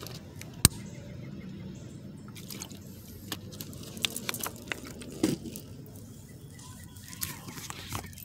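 Scattered sharp clicks and soft taps of tarot cards being handled, one loud click near the start and a firmer tap about five seconds in, over a faint steady background.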